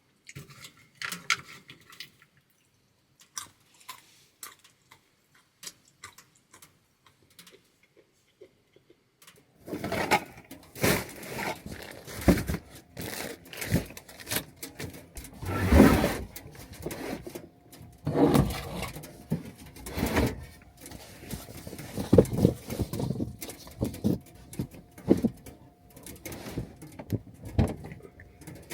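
Irregular small clicks and knocks, sparse at first, then about a third of the way in a busy stretch of knocking, rustling and scraping, like things being handled close by.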